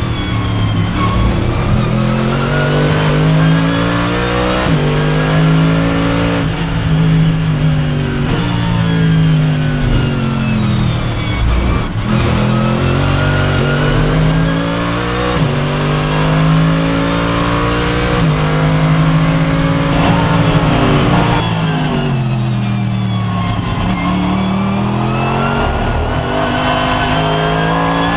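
Mercedes SLS AMG GT3's 6.2-litre V8 at racing pace, heard from inside the cockpit: the engine note climbs through the gears with quick stepwise upshifts, then falls through downshifts under braking into corners twice, before pulling hard again.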